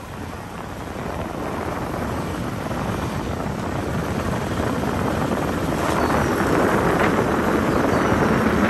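A vehicle is running while moving, with wind rushing over the microphone, as a steady dense rumble that gradually gets louder.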